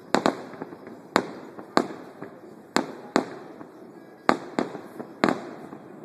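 Aerial firework shells bursting: a run of about nine sharp bangs at irregular intervals, some in quick pairs.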